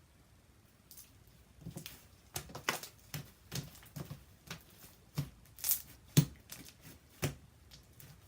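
Slime being worked by hand, giving a dozen or so sharp, irregular pops and squelchy clicks as it is squeezed and stretched, the loudest about six seconds in.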